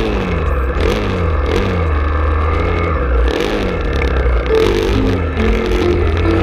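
Background music with a heavy bass line and repeated falling synth sweeps, turning into a stepped melody about halfway through.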